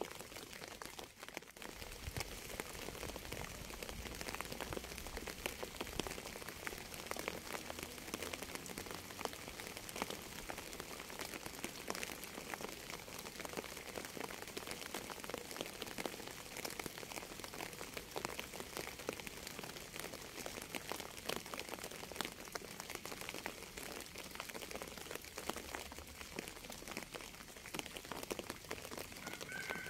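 Steady rain falling, a constant hiss dense with the ticks of individual drops striking a surface.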